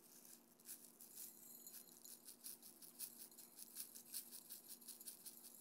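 Faint, rapid, irregular rattling of sprinkles shaken from a small plastic shaker onto a candy-coated cake pop.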